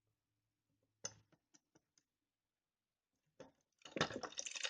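A stiff bell being pressed that fails to ring. It gives a sharp click about a second in, then a few light clicks, and a dense rattling flurry of clicks near the end.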